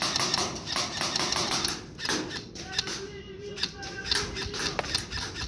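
Airsoft guns firing: a rapid run of sharp clicks and cracks, thickest in the first two seconds, then scattered single shots.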